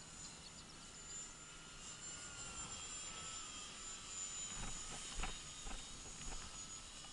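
Electric motor and propeller of an Art-Tech T-6 Texan RC model plane whining high overhead, its pitch drifting slowly as it flies past. A few low bumps come about four to six seconds in.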